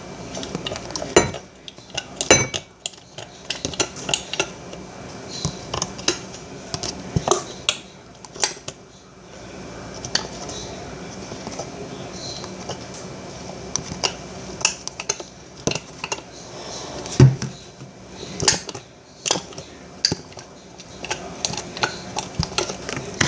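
A utensil stirring slime ingredient in a bowl, clinking and scraping against the bowl in irregular knocks throughout.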